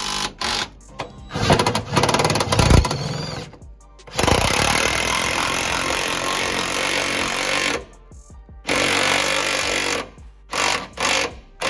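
DeWalt cordless impact tool hammering as it tightens the fuel tank strap nuts and bolts: several short bursts, then two longer runs of a few seconds each, then short bursts again.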